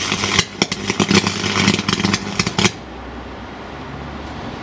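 Arc welder's electrode arcing against a chip on a circuit board: a loud crackling, spitting arc with a buzz under it, which cuts off about two and a half seconds in, leaving a low hum.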